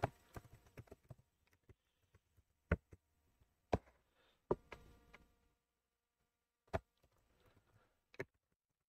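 Faint computer keyboard keystrokes: a quick run of light clicks, then single sharp key clicks about a second apart.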